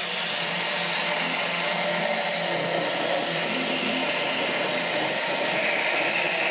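Homdox mini blender's motor running steadily as it blends a thick fenugreek paste mix.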